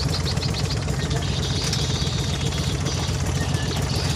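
Engine of a wooden river-taxi boat running steadily, a low even drone heard on board, with a faint hiss of water and wind over it.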